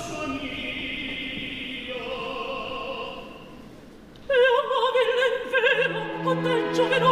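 Operatic singing with orchestra. A held sung note fades away, then about four seconds in a singer comes in loudly with wide vibrato over sustained low orchestral notes.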